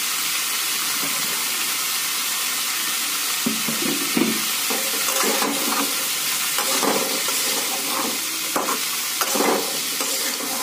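Yardlong beans and potatoes frying in oil in an aluminium kadhai with a steady sizzle. From about three and a half seconds in, a steel spatula scrapes and tosses them several times.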